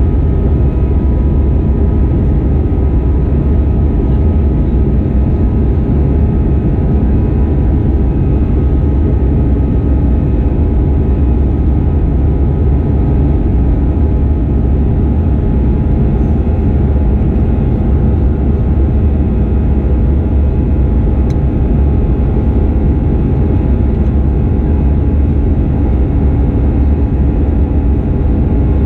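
Airbus A320-214's CFM56-5B jet engines and airflow heard from inside the cabin in flight: a loud, steady roar with a few faint steady tones running through it.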